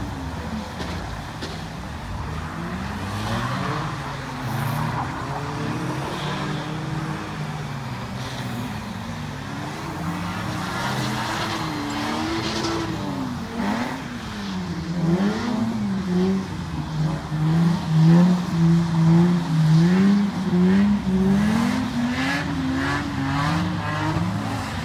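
Cars drifting on a track: engines revving up and down over and over, with bursts of tyre squeal. A quick string of rev surges comes in the second half.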